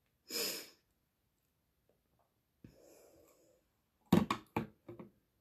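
A quick sharp breath about half a second in and a fainter breath near three seconds. Near the end comes a quick run of four or five loud knocks, as of things being set down on a hard surface.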